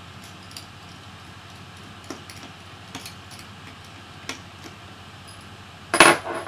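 Light scattered clicks of a screwdriver and plastic laptop case being handled, then a louder metallic clatter with a brief high ring near the end.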